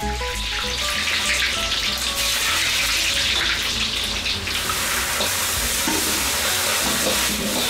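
Battered pieces deep-frying in hot oil in a wok, a dense sizzling hiss that is loudest in the first half and eases about four and a half seconds in. Background music plays faintly underneath.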